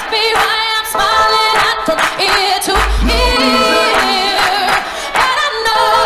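Music with singing voices and a deep bass note about three seconds in.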